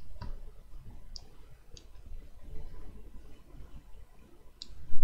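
A few separate computer mouse clicks, spaced a second or more apart, over a steady low background hum.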